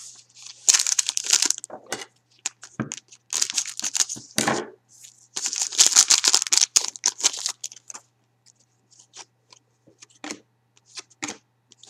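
A foil trading-card pack wrapper is torn and crinkled open in three bursts of crackling over the first eight seconds or so. Then the hockey cards are handled and flicked through, giving light scattered clicks.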